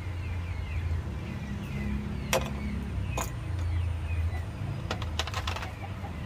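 Metal forks and spoons clicking against oyster shells and ceramic plates as steamed oysters are picked open: a sharp click about two seconds in, another about a second later, then a quick run of clicks about five seconds in. A steady low hum runs underneath.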